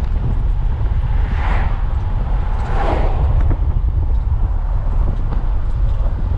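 Camper van driving on the road: a steady, loud low rumble of engine and road noise, with two brief swells of hiss about a second and a half and three seconds in.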